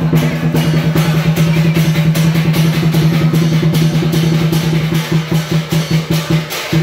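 Drum-led music: fast, dense drum strokes over a steady low held tone, the beat opening up and spacing out in the last couple of seconds.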